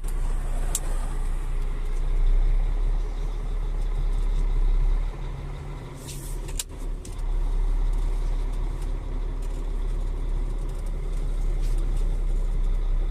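Semi-truck's diesel engine running steadily as the rig is driven and maneuvered, easing off about five seconds in. A short, sharp hiss cuts in about six seconds in.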